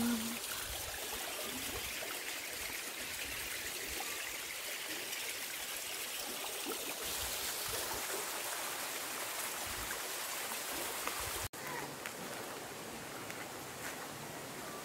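Shallow river flowing over gravel and stones: a steady sound of running water, briefly cut off about eleven and a half seconds in.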